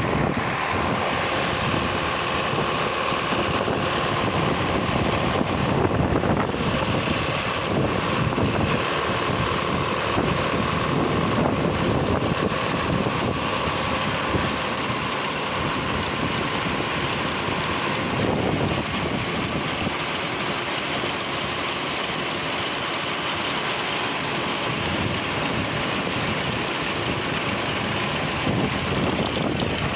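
Tractor engine running steadily while pulling a John Deere 530 round baler, with wind buffeting the microphone.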